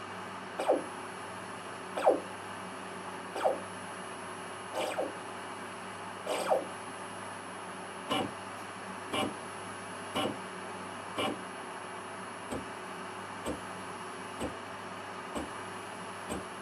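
1 kW Yaskawa AC servo motor making repeated short back-and-forth positioning moves during the drive's auto-tuning gain search, with a brief whine at each move. The moves come about every second and a half, then from about halfway through become shorter, quieter and quicker, about once a second. A steady low hum runs underneath.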